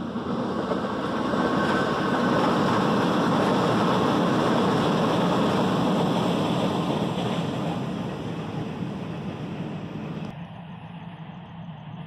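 A passing vehicle's rushing road noise: it swells over about two seconds, holds, then fades. About ten seconds in it drops abruptly to a quieter steady hum.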